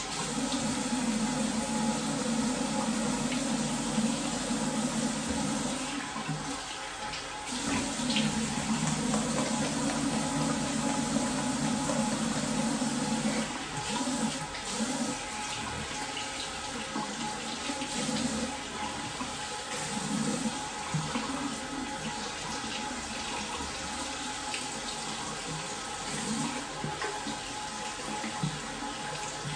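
Tap water running steadily into a bathroom sink, with splashing as a face is washed.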